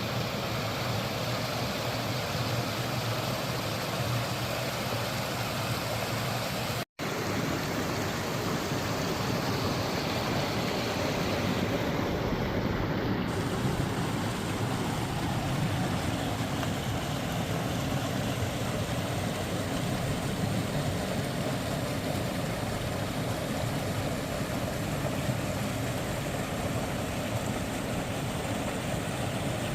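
Forest stream flowing steadily over rocks, an even rush of water that cuts out for a split second about seven seconds in.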